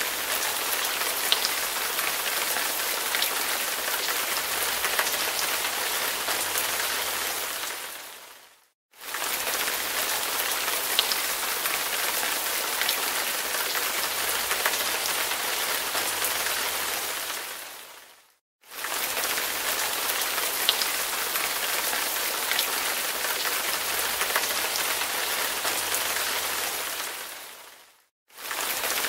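Steady rain with scattered sharper drop ticks, a recorded track that fades out, falls briefly silent and restarts about every nine and a half seconds, three times.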